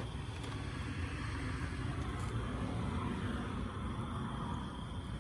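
Steady rumble of a small car's engine running, with an even hiss over it.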